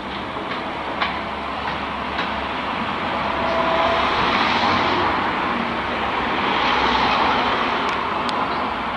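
Road and tyre noise of a moving car heard from inside, a steady rush that swells in the middle and eases near the end.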